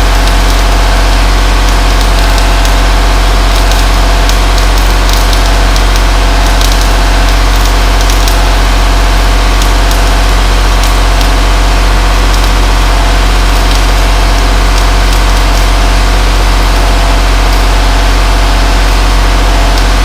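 Electric arc welding on a Cat D3C dozer's steel frame: the arc crackles steadily over the constant hum of a heavy-current welding machine.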